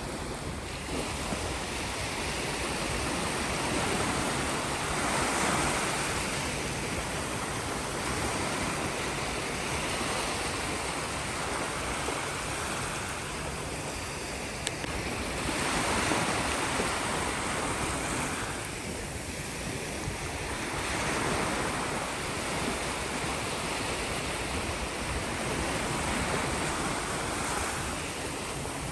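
Sea surf washing on a shore: a continuous rush of waves that swells and eases again every several seconds.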